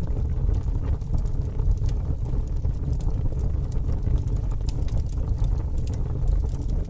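Bonfire burning, with scattered sharp crackles and pops over a steady low rumble.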